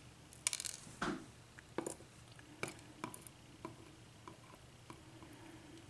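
Faint, scattered small clicks and taps, about eight, as the pins are taken out of the sixth chamber of a disassembled Sargent mortise lock cylinder.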